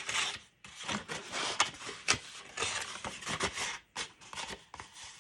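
Paper or cardstock being handled: irregular rubbing and sliding with scattered light taps.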